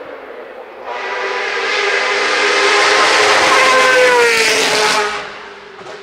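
Norma M20 F sports-prototype race car passing flat out: the engine note builds from about a second in, is loudest as the car goes by, drops in pitch as it passes, then falls away quickly, with a loud hiss over the top.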